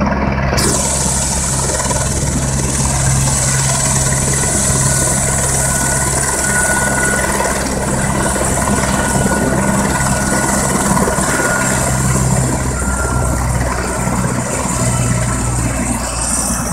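Helicopter rotor and turbine running steadily, a constant low beat under a high hiss that comes in about half a second in.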